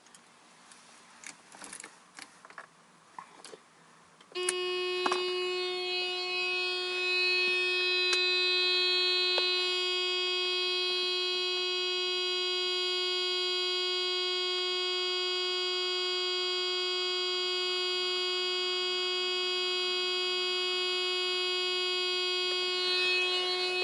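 A few faint clicks, then about four seconds in a steady, high electronic buzzing tone starts abruptly and holds unchanged.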